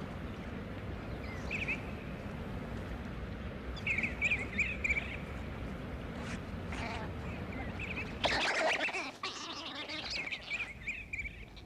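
Short bursts of high-pitched chirping calls over a steady low outdoor background, with a brief louder noisy burst about eight seconds in.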